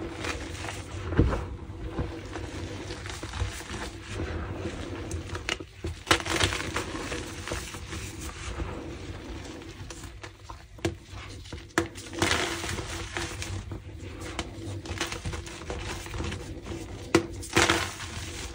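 Slices of pressed gym chalk being crushed and broken, crunching irregularly with sharper snaps every few seconds.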